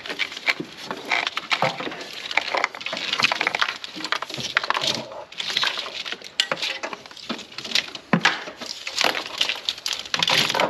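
A wiring harness in corrugated plastic loom being pushed and pulled through a truck's firewall by hand: irregular rustling, scraping and clicking of plastic against metal and wires.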